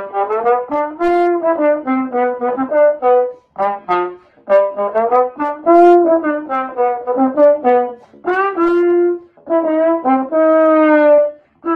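Background music: a melody played on a brass instrument, in phrases of short notes with a few held ones.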